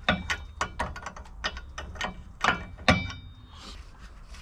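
Ratchet wrench clicking in quick, uneven strokes as the wheel hub's mounting bolts are backed out; the clicking stops about three seconds in.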